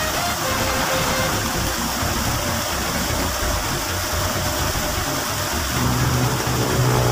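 Small waterfall pouring steadily over a ledge into a stream, a constant rushing splash. About six seconds in, a steady low hum joins it.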